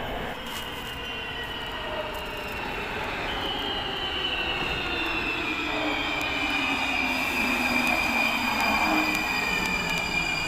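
Warsaw Metro train pulling into an underground station, rumbling along the rails with a high electric whine that falls slowly in pitch as it brakes. It grows louder as the train comes alongside the platform.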